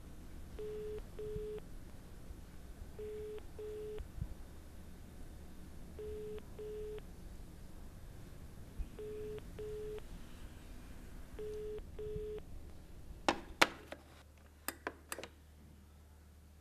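Telephone ringing tone heard through a handset: five double rings about three seconds apart, the call ringing unanswered. Near the end the ringing stops and a few sharp clicks follow as the phone is hung up.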